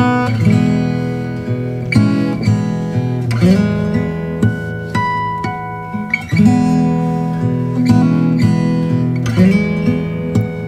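Background music of acoustic guitar, picked and strummed, with new chords or notes struck every second or two.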